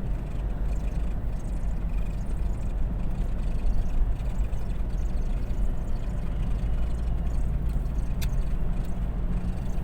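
Steady low road and engine rumble of a moving pickup truck, heard from the vehicle, with one short tick about eight seconds in.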